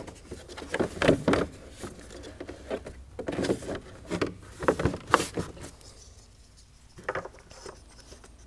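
Plastic engine cover being set back onto a V8 and pressed into place by hand: a run of irregular knocks, clicks and rubbing that thins out about six seconds in, with a couple of last clicks after.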